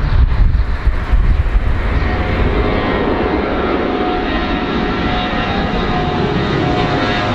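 Airplane engines running: a low rumble for the first two seconds, then a steady engine noise with a whine of several high tones that brightens slightly near the end.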